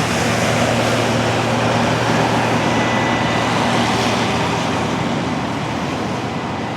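Massey Ferguson 40RS combine harvester working, its six-cylinder turbocharged Valmet engine humming steadily under the noise of the machine. The sound slowly fades toward the end.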